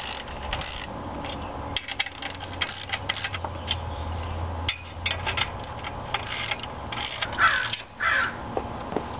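Ratchet wrench clicking and metal tools clinking as the pressure-plate bolts on a Chevy 350's flywheel are run down, with two short loud sounds near the end.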